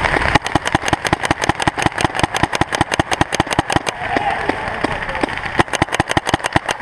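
Paintball marker firing rapid strings of shots, about ten a second, with a pause of about a second and a half around four seconds in before firing resumes.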